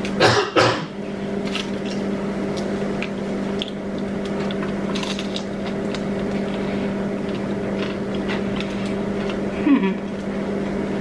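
Crunchy bites and chewing of spicy fried chicken, with two loud crunches in the first second and smaller crackles after. A steady low hum runs underneath.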